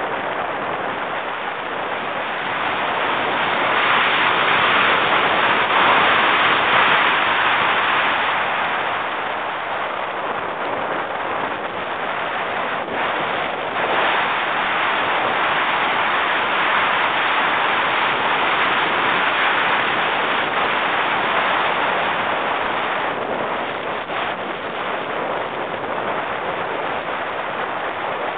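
Wind rushing over the microphone of a rider on the Wild Thing steel roller coaster, with the train's running noise on the track underneath. The rush swells twice as the train picks up speed and eases toward the end as it reaches the brake run.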